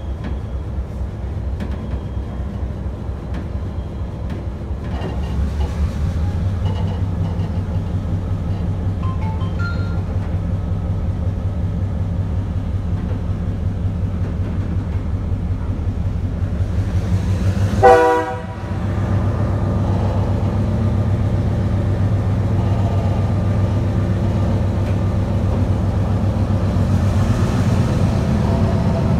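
EMD G12 diesel locomotive's engine running with a steady low throb, heard close to the coupling, growing louder about five seconds in. Past the middle the locomotive's horn gives one short blast.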